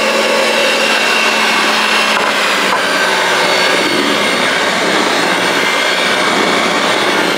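Hamilton Beach electric hand mixer running steadily, its beaters whipping mashed potatoes in a stainless steel bowl.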